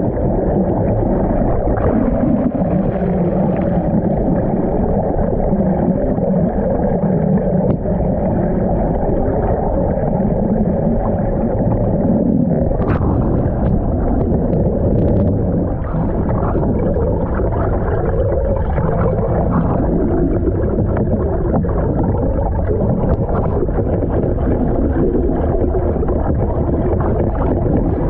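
Muffled rushing and gurgling of water flowing past a GoPro camera held underwater beside a moving sailboat's hull, a steady deep rumble with scattered crackles of bubbles.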